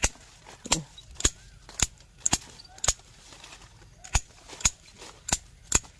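Hand pruning shears snipping small branches of a young durian tree: about ten sharp clicks, roughly half a second apart, with a short pause in the middle.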